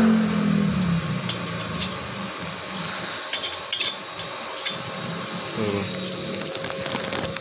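A droning hum fades out in the first second, then a few sharp metallic clinks and knocks as welding gear and iron are handled, over a steady background hiss.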